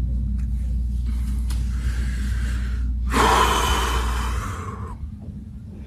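A man's heavy, emotional breathing, with one long, loud breath out about three seconds in, over a steady low hum.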